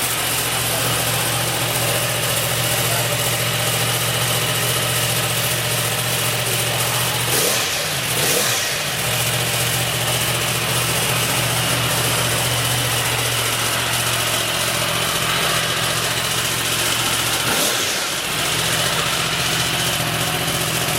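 Yamaha R1M with its stock exhaust, its 998 cc crossplane inline-four idling steadily. Short throttle blips come about a third of the way in and again near the end.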